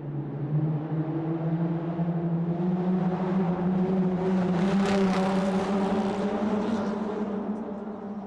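Car driving through a tunnel: its engine note climbs in pitch as it speeds up, swelling to a peak about five seconds in, with a brief rush of hiss there, then fading away.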